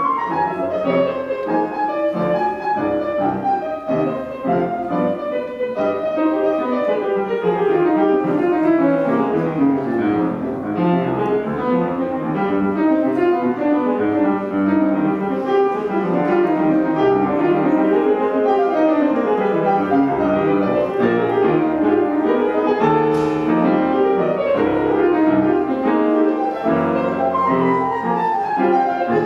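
Solo jazz piano played live on a Petrof grand piano: dense flowing runs that sweep down and back up over chords.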